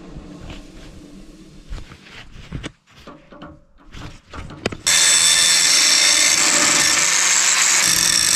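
A few light knocks and clicks of handling, then about five seconds in a power tool starts abruptly and runs loudly and steadily with a high whine.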